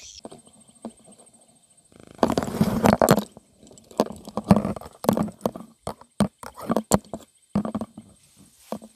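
Footsteps tramping through thick swamp grass, with a loud rustle of grass about two seconds in, then irregular thuds and swishes, roughly one or two a second.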